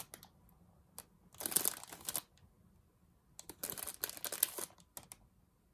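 A thin clear plastic bag crinkling as a hand rummages in it for pom-poms, in two bursts of about a second each, about a second and a half in and again near four seconds, with a few light clicks between.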